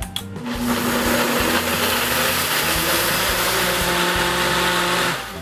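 Hamilton Beach professional blender running at high speed, blending a full jar of black sesame seeds, cooked rice and water into a sesame drink. It starts about half a second in, holds a steady loud whir, and cuts off near the end.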